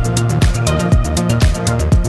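Electronic dance background music with a steady kick drum about twice a second, quick hi-hats and sustained synth notes.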